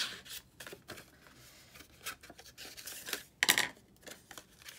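Cardstock paper petal being handled: a run of short rustles and rubbing as it is curled around a wooden dowel and folded by hand, with one louder rustle about three and a half seconds in.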